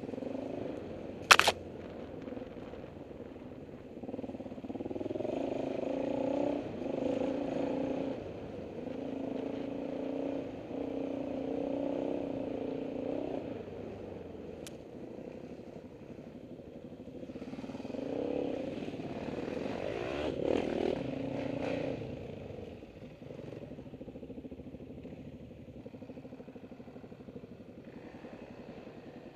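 Dirt bike engine riding under the camera, its pitch holding and then shifting up and down in steps as the throttle and gears change, easing to a quieter steady running over the last few seconds. A sharp knock about a second in is the loudest sound.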